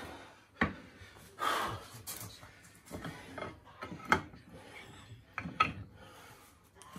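Scattered sharp metal knocks and clicks of tools being handled on the machine, with a short scrape about a second and a half in.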